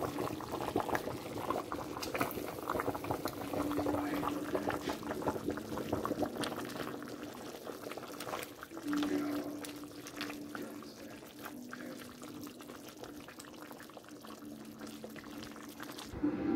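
Tomato broth with spaghetti noodles at a rolling boil in an open enameled Dutch oven, bubbling and crackling continuously over a low steady hum. The bubbling is busier in the first half and settles somewhat after the middle.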